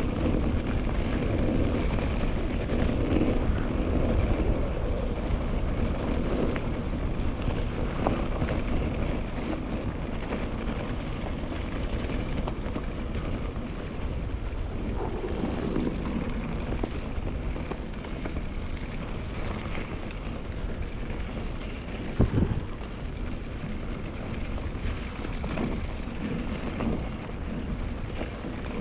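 KTM Ultra Fire 27.5 mountain bike being ridden at speed on a leaf-covered forest dirt track: steady wind rushing on the GoPro's microphone over the tyres rolling on dirt and leaves. A single sharp knock about three-quarters of the way through is the loudest moment.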